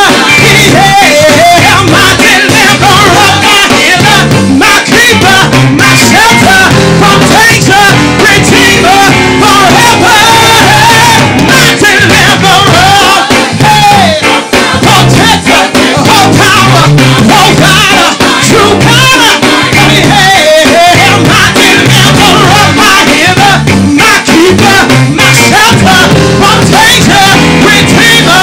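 Live gospel praise and worship music, loud: a band playing a steady beat with voices singing over it.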